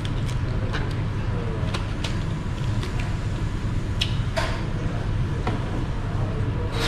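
Hand-eating of crab and seafood: scattered small clicks and cracks of shells being broken and picked apart, over a steady low hum of room noise.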